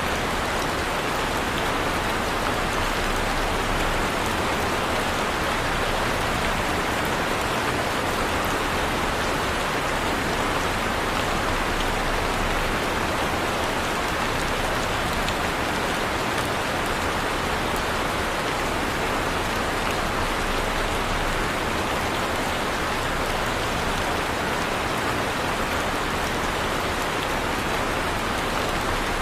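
Heavy rain falling steadily, a dense even hiss of drops striking a surface with fine pattering ticks throughout.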